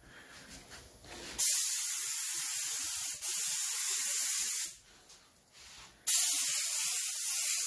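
Automotive paint spray gun hissing as it sprays a coat of paint onto a panel, in two long passes: the first starts about a second and a half in and runs some three seconds with a momentary break, the second starts about six seconds in.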